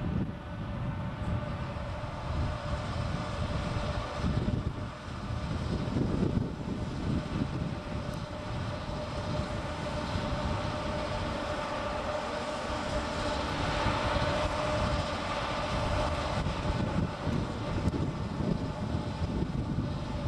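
JNR Class EF64 electric locomotive standing still with its equipment giving a steady hum of several tones, a little louder a bit past the middle, over an uneven low rumble like wind on the microphone.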